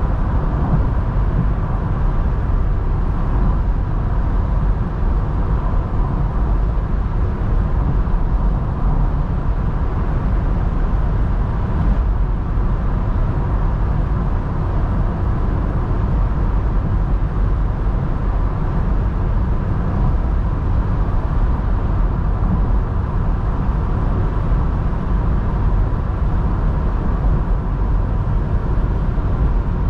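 Steady driving noise of a Mazda MX-5 NC at a calm, even cruise, heard from the driver's seat: its 1.8-litre four-cylinder petrol engine running smoothly under steady tyre and wind noise, with no gear changes or revving.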